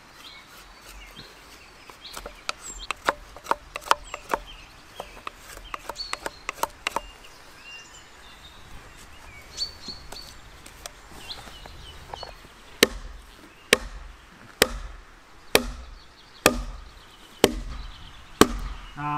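Knife whittling a peeled wooden stake on a chopping block: a run of light, quick cutting clicks, with birds chirping. In the second half, heavy strikes on wood at a steady pace of a little under one a second.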